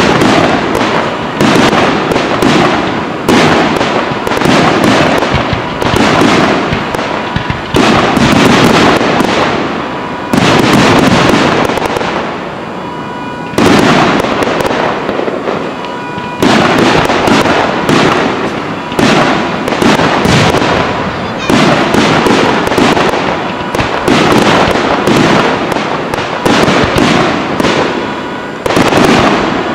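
Fireworks display: aerial shells bursting in rapid succession, a near-continuous barrage of loud bangs several a second, easing briefly about halfway through before picking up again.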